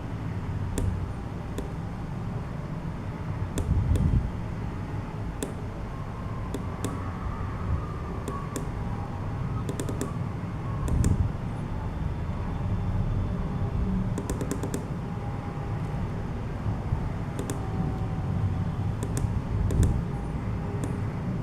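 Emisar D4 flashlight's electronic switch clicking: scattered single presses, with a quick run of several clicks about fourteen seconds in, over a steady low rumble.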